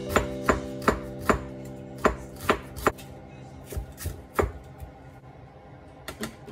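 Kitchen knife chopping onion on a cutting board: about ten sharp chops in short runs, two or three a second, with a few lighter taps near the end.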